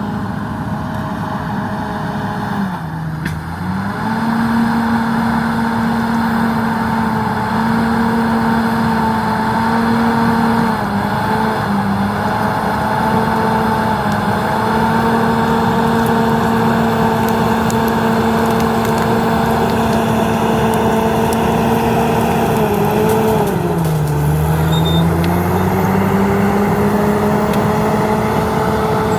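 Komatsu D68ESS bulldozer's diesel engine running steadily at working revs. Its pitch sags and recovers twice, about three seconds in and again near the end, as the engine pulls down under load.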